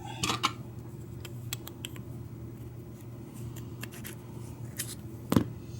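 Scattered light metal clicks and ticks as a key blank is slid out of a Schlage deadbolt's lock cylinder and a plug follower is picked up, with one sharper knock near the end.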